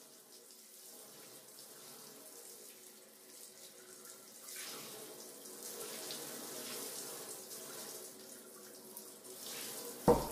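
Water running, faint at first and louder from about four seconds in, with two sharp knocks near the end.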